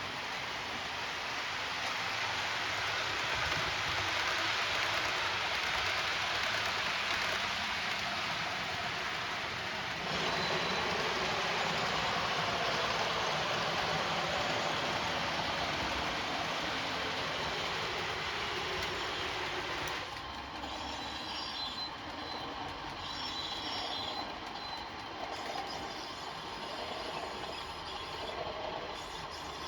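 Sound-fitted OO gauge Accurascale Class 37 model locomotive running on the layout, its onboard speaker playing a steady diesel engine sound over the rumble of wheels on the track. The sound changes abruptly about ten seconds in and again about twenty seconds in.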